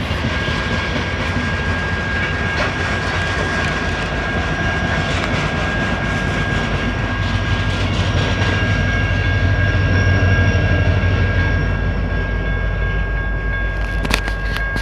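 BNSF freight train of coal hopper cars rolling past, a steady deep rumble with wheel clatter that swells slightly midway, under a continuous high-pitched tone. A couple of sharp clicks near the end.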